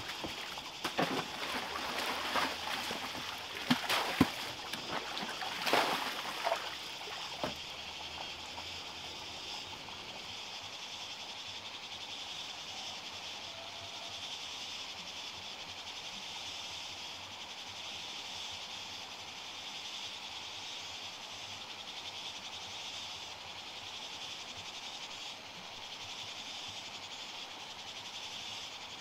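Water splashing and pouring as a woven basket is dipped and lifted in a shallow muddy pond: a run of splashes over the first several seconds. After that only a steady high hiss of outdoor background remains.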